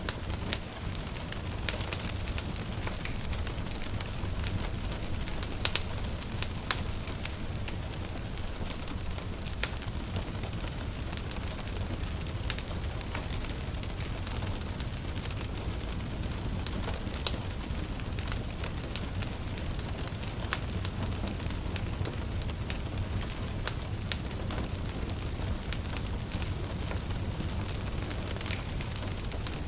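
Wood fire in a fireplace crackling steadily, with frequent sharp pops and snaps at irregular moments, over a continuous hiss of rain.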